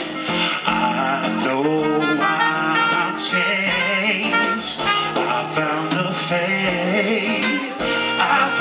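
A live soul band playing, with a trumpet line over keyboard and drums, and voices singing.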